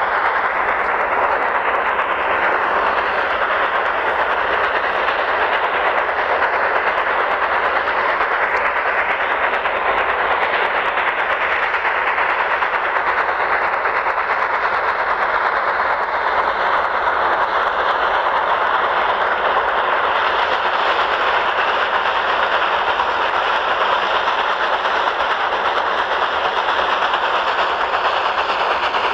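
NGG16 narrow-gauge Garratt steam locomotive No. 153 working a train, its exhaust beats coming in a steady, rapid run at an even level.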